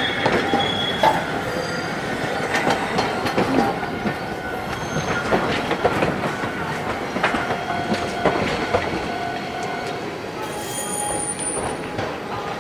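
Hankai Tramway streetcar wheels clacking over the rail gaps of a diamond crossing, a quick run of sharp knocks mixed with steady wheel squeal, growing fainter toward the end.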